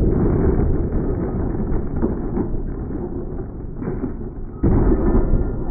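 Slowed-down, muffled rumble of a .308 rifle bullet striking a homemade porcelain-tile-and-steel armor plate, slowly dying away, then a sudden louder thud about four and a half seconds in as the plate falls off the table.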